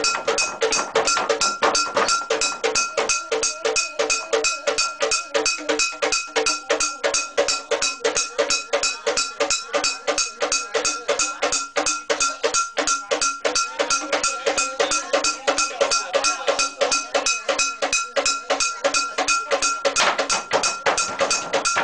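Ceremonial percussion with metal gongs, struck in a fast, even beat of about five strikes a second over a steady metallic ring.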